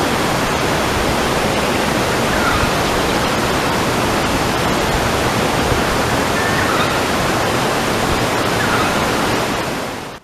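Steady loud hiss, even across all pitches, that cuts off abruptly at the end, with a few faint short chirps over it.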